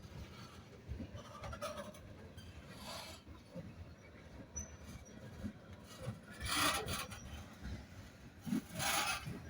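A Union Pacific train making noisy rasping, scraping sounds over a low rumble, with three swells, the loudest two in the second half.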